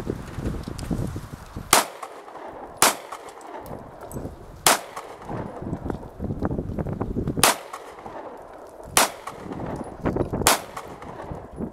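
Six single gunshots from a firearm fired at a target, spaced irregularly about one to three seconds apart, each a sharp crack.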